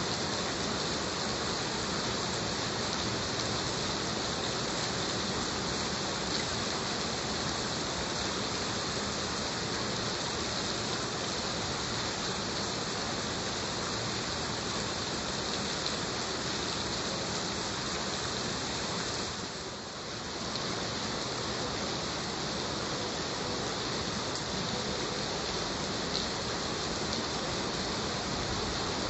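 Heavy rain falling steadily, an even hiss with no distinct drops standing out; the level dips briefly about two-thirds of the way through, then returns.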